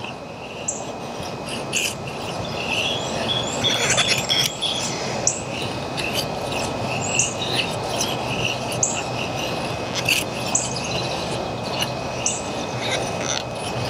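Scandi-ground blade of a Battle Horse Knives Tree Frog folding knife shaving curls off a stick in repeated scraping strokes, with a few clicks; the wood is crumbly and feathers poorly. Birds chirp about once a second over a steady high insect drone.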